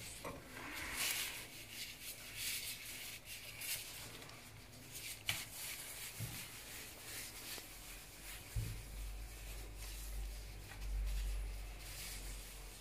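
Faint rubbing and rustling of disposable plastic-gloved hands working soft lard dough around raw pork filling, with scattered soft clicks. A soft knock comes about two-thirds of the way in, followed by a low rumble.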